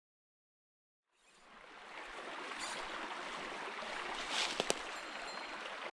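Stream water running steadily, fading in about a second in, with two sharp clicks near the end; the sound cuts off abruptly.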